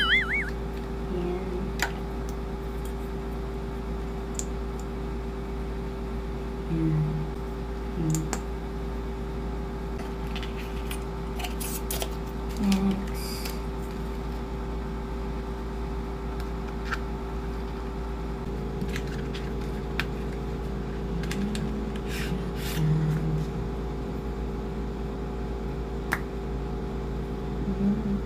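Small clicks, taps and rustles of makeup packaging as a liquid lipstick and its box and then a pencil are handled, over a steady electrical hum. A few short low sounds stand out as the loudest moments.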